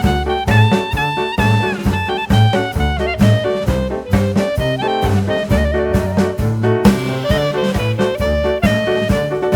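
Jazz music with brass and saxophone over a steady walking bass beat.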